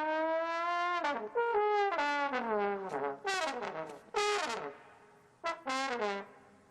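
Homemade trombone blown for silly noises: a long held note, then a run of short notes that slide down in pitch, with a brief lull before a last couple of short sliding blasts near the end.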